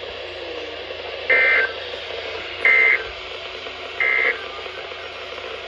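Emergency Alert System end-of-message signal on NOAA Weather Radio: three short bursts of SAME digital data tones, each about a third of a second long and spaced about a second and a third apart, over steady radio hiss. They mark the end of the alert broadcast.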